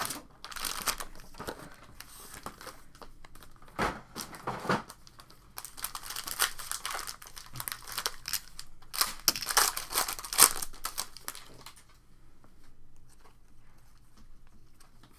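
Trading card pack wrappers being torn open and crumpled, in crackly crinkling bursts over the first twelve seconds or so, then going quieter near the end.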